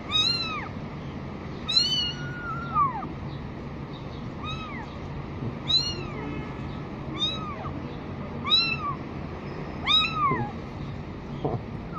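Young kittens meowing again and again, about seven short calls that each rise and fall in pitch, spaced roughly a second and a half apart: hungry kittens crying for milk at a bottle feeding.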